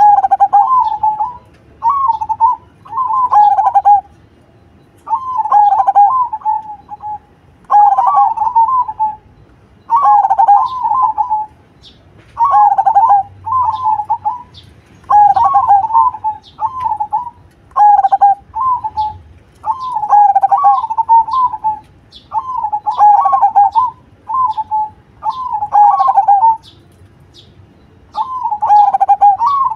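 A zebra dove (perkutut) cooing: short rolling, staccato coo phrases, each a second or two long, repeated about every two seconds with brief pauses. Faint high ticks sound behind it in the second half.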